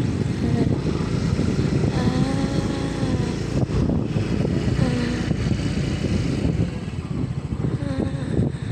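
Small motorcycle's engine running steadily while riding on a dirt road, with wind rumbling on the microphone.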